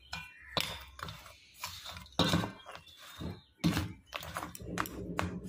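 Steel spoon stirring a dry flour-and-semolina mix in a metal bowl: irregular scrapes, with sharp clinks of spoon against bowl about five times.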